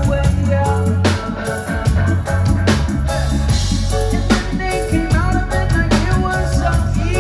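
Live reggae-rock band playing: drum kit, guitars and keyboards, with a strong drum hit about every second and a half.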